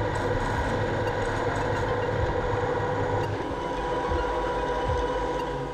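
Conventional metal lathe running, spinning a stainless steel tube, with a steady hum and whine. Its low rumble drops away about three and a half seconds in.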